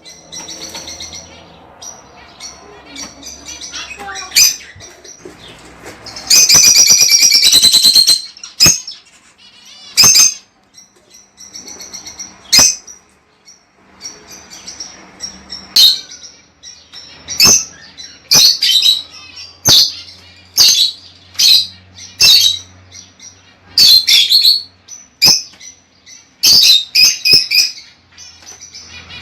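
Lovebirds calling: repeated sharp, high-pitched chirps and shrieks, with one loud, rapid chattering burst lasting about two seconds, starting about six seconds in.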